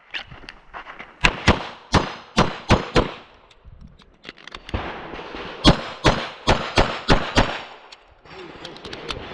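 Rapid string of pistol shots, mostly fired in quick pairs, with a pause of about a second and a half for a magazine change a little over three seconds in, then another fast string.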